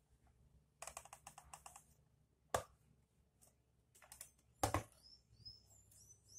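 A quick run of light clicks, then two sharp knocks as a clothes iron is handled and set down on a wooden board. Faint short high chirps come in near the end over a low steady hum.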